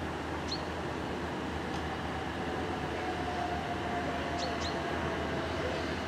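Southeastern Class 375 Electrostar electric multiple unit approaching, a steady rumble with a faint whine that slides slowly lower in pitch. A few short high bird chirps, once near the start and twice later.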